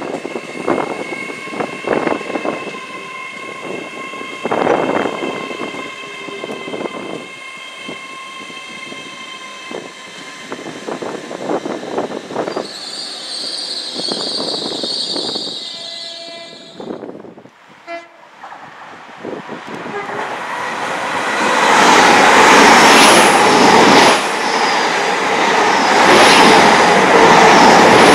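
Hitachi Class 800 (LNER Azuma) train: first its coaches move away with repeated wheel thumps over rail joints and a steady whine, and a high-pitched sound lasts a few seconds before a sudden break. Then a Class 800 passes close at speed, a loud rush of wheels and air with regular clicks as the bogies cross the joints.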